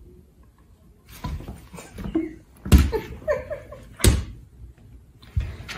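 Sharp thumps and scuffles on a hardwood floor as a cat and a large dog play-fight, the loudest a little under three seconds in and again about four seconds in, with short vocal sounds in between.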